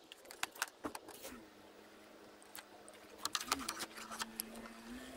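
Light clicks and rattles of twin-core solar cable being handled and pulled through a roof cable-entry gland box, scattered in irregular clusters. A faint steady hum sits underneath from about a second in.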